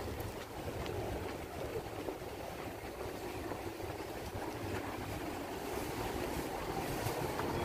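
Steady outdoor street ambience: a low, even rumble with wind on the microphone and a few faint clicks.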